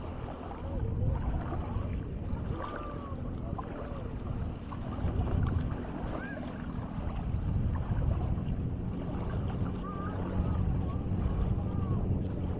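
Beach ambience: a steady low hum and rumble with faint distant voices calling out now and then.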